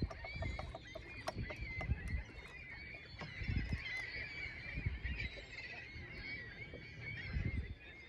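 A flock of water birds calling steadily over the lake, with many overlapping chattering calls. There are low thumps now and then.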